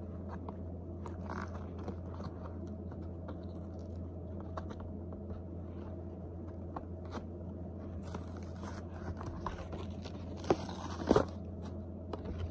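Plastic packaging being handled: scattered small clicks and rustles, then a stretch of crinkling about two-thirds of the way in, with the sharpest, loudest crackles near the end.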